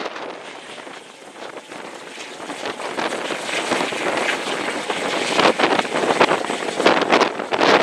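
Helicopter flying low overhead, its rotor and engine noise growing steadily louder as it comes closer.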